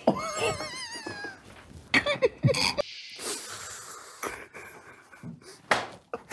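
Stifled laughter: wheezing, half-held-back giggles through covered mouths. A wavering high-pitched squeal comes in the first second or so, and a breathy hiss about three seconds in.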